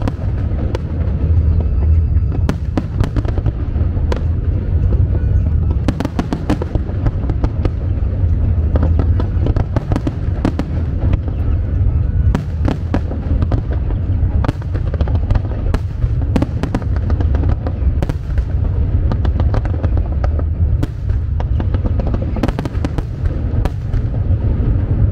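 Aerial fireworks display: a constant deep rumble of shell bursts, with clusters of sharp crackling and popping every few seconds.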